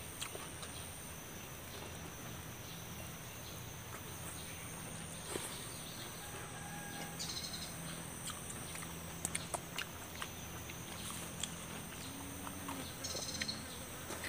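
Soft clicks and smacks of hands tearing roasted chicken and chewing, with a cluster of clicks near the middle, over an outdoor background with a few short bird chirps.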